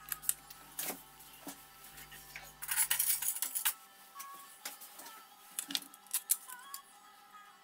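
Small plastic and metal parts clicking and clattering as a limit switch and a nut are handled and set down on a silicone work mat, with a louder rattling clatter about three seconds in, over quiet background music.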